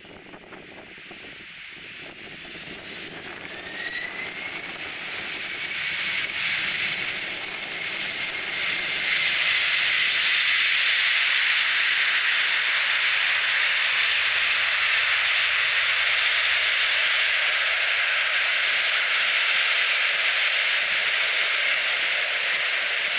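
Boeing 747-400F freighter's four jet engines spooling up in reverse thrust during the landing roll on a wet runway: a thin whine rises a few seconds in, and the sound grows over about nine seconds into a loud, steady rushing jet noise that holds.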